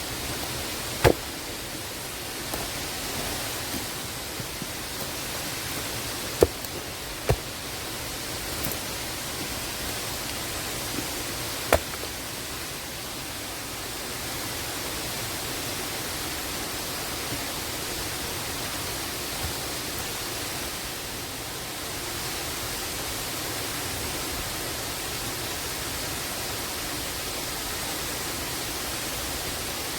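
Waterfall water rushing steadily, with a few sharp knocks in the first half.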